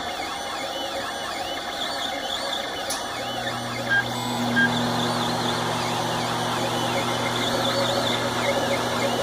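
LulzBot TAZ 5 3D printer printing, its stepper motors sounding in quick rising and falling tones as the print head moves. A low steady hum joins about three seconds in.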